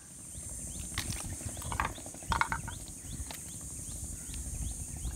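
Creek-side outdoor ambience: a steady high-pitched insect drone, with two short bird calls a couple of seconds in, and low wind rumble on the microphone.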